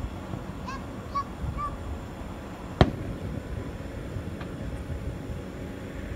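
Fireworks shell bursting with a single sharp bang about three seconds in, and a fainter pop a second and a half later, over steady background noise. In the first two seconds come three short, high honk-like calls.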